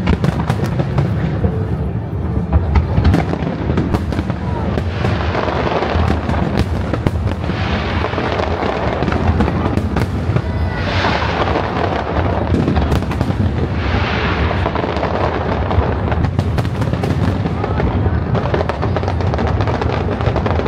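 An aerial fireworks display going off without a break: a dense low rumble of shell bursts, sharp bangs, and several louder swells of high-pitched crackling.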